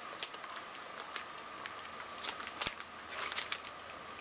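Faint wet mouth clicks and smacks of someone tasting a chewy tamarind pulp candy, with one sharper click a little past the middle and a short cluster soon after, over a faint steady high hum.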